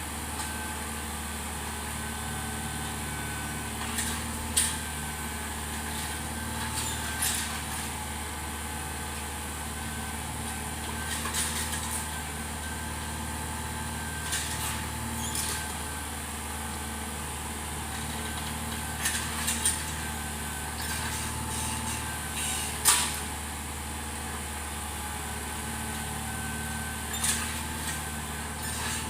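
Tractor engine running steadily, with a short sharp knock every few seconds, the loudest about two-thirds of the way through.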